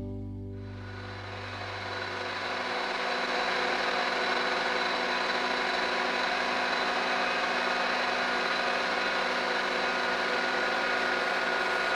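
Background music fades out within the first couple of seconds, giving way to a mobile crane's engine running steadily, with a thin, steady high whine over it.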